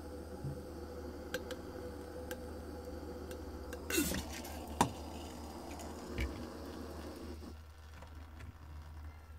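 Handheld butane torch flame hissing steadily while the heated score line on a glass bottle gives off sharp ticks and pings under thermal stress. About four seconds in there is a short burst and then a loud crack as the hot bottle goes into cold water, and the flame's hiss stops near the end.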